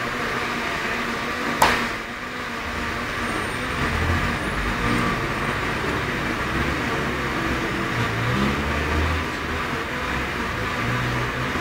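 Street traffic: cars and buses running by with a steady hum that swells and fades as vehicles pass, and one sharp click about a second and a half in.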